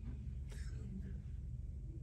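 A pause in the talk: steady low room hum, with a faint brief sound about half a second in.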